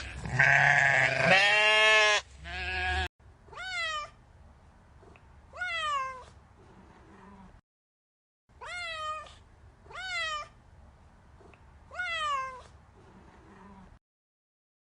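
A domestic cat meowing five times in short, separate calls, after a brief loud bleat at the start that belongs to the previous goat or sheep clip.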